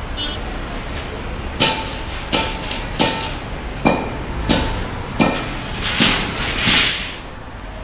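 Steel striking steel rebar: eight sharp metallic clanks at a steady pace, about one every 0.7 seconds, several leaving a short ringing note.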